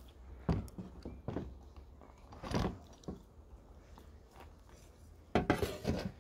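A few scattered light knocks and clatters of hard hive parts being handled at an open beehive, with the loudest cluster near the end.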